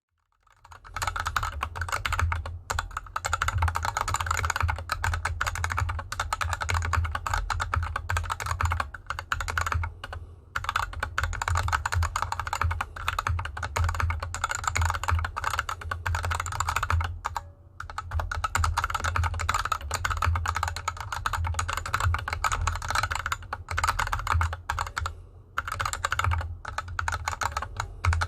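Steady typing on a GK64X mechanical keyboard with unlubed Gateron Yellow linear switches and DSA keycaps, the board resting on a desk mat over felt fabric. The run of key strikes breaks briefly about ten, seventeen and twenty-five seconds in.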